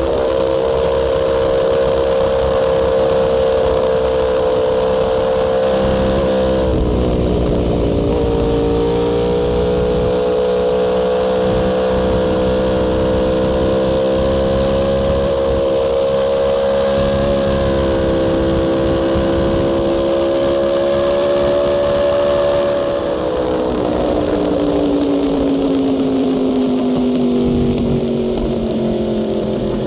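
Aprilia Tuono V4 R's V4 engine running hard at highway speed. Its note dips sharply about seven seconds in and climbs back, rises slowly, then falls away over the last several seconds as the revs drop, and picks up again at the very end.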